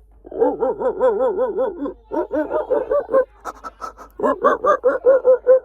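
A person's voice doing an animal-like vocal sound effect. It starts as a continuous call with a fast wobbling pitch, then breaks into runs of short, yelping pulses, about five a second.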